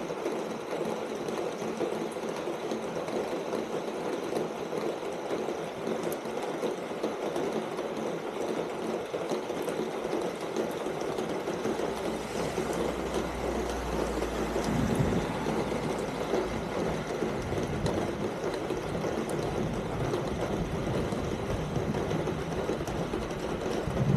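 Steady rain falling on a corrugated metal (tin) roof, a dense, even patter of drops on the sheet metal. A low rumble joins in about halfway through.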